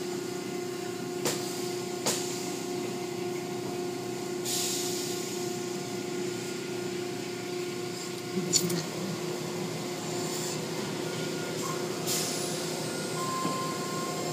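Automatic car wash machinery running: a steady motor hum with a few constant tones under the hiss of water and foam. The cloth strips and brushes slap or knock sharply against the car a few times.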